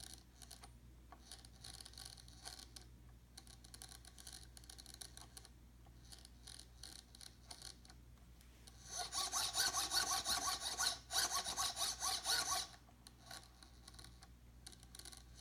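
BK tail servo of a model helicopter being turned slowly, its gears grinding faintly for most of the time, then louder for about four seconds past the middle. The grinding appears only at slow speed after a crash, and the owner wonders whether the servo's gears need changing.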